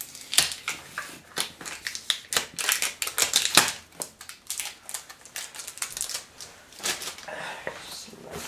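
Cardboard box and its packaging being opened and handled by hand: a quick, dense run of crackles, clicks and scrapes as the flaps and inserts are worked, thinning out after about four seconds and picking up again briefly near the end.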